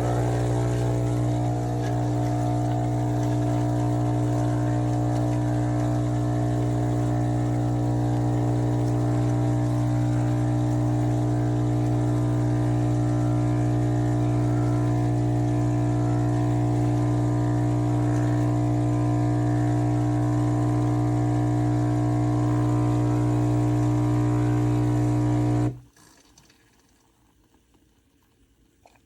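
Philips 4400 Series fully automatic espresso machine running its pump: a loud, steady, even hum that stops abruptly near the end.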